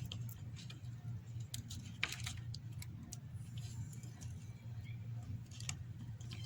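Light scattered clicks and taps of small parts being handled as the display flex cables are pressed onto their connectors in an iPhone 7, over a steady low hum.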